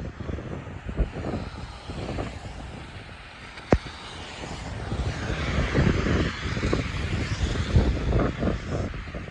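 Wind buffeting the microphone in low gusts, with a single sharp click just under four seconds in. A rushing noise swells from about five seconds in and fades again near eight seconds.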